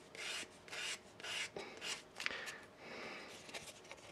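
Coarse side of a sanding stick rubbed over the end of a small wooden dowel, rounding its edge: faint rasping strokes, about two a second.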